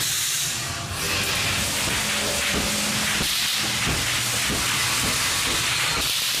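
Haunted-house effects: a steady, loud hiss like escaping steam or compressed air, starting about a second in, over a low hum.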